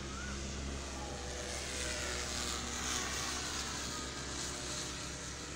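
Electric motor and 10-inch propeller of a 3D-printed RC glider in flight, a high whine that swells about halfway through and then eases off, over a steady low rumble.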